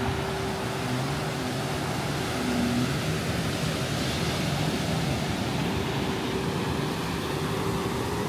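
Steady drone of a distant motorboat engine, holding one even pitch, over a constant wash of noise.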